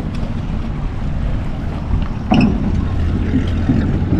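Wind rumbling on the microphone, with a sharp loud knock a little over two seconds in, then a steady low engine hum.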